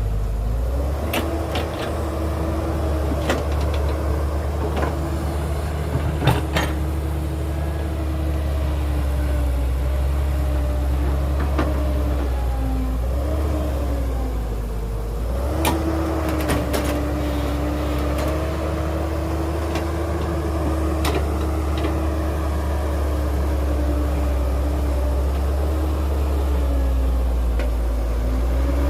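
Heavy diesel engine of earthmoving machinery running under load, its pitch rising and falling as it revs up and settles back several times, with a few sharp metallic clanks, the loudest about six seconds in.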